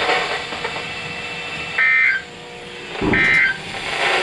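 Emergency Alert System SAME data bursts: two short, loud warbling digital tone bursts about a second apart, part of a train of three. Bursts this short are typical of the end-of-message signal that closes an EAS alert.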